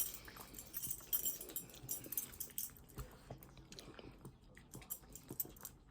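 A dog chewing a treat: irregular small crunches and clicks.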